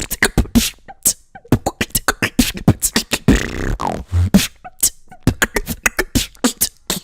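Human beatboxing: a fast run of kick, snare and hi-hat sounds made with the mouth, with a sung, gliding pitched vocal line about three seconds in. It stops suddenly at the end.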